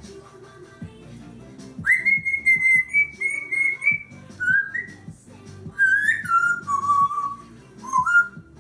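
African grey parrot whistling a tune. It starts about two seconds in with a long high note that steps slightly upward, then moves through lower notes falling away, and ends with a short rising note.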